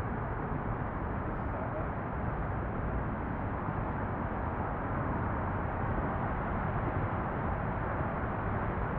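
Steady outdoor background noise, an even rumbling hiss with no distinct events.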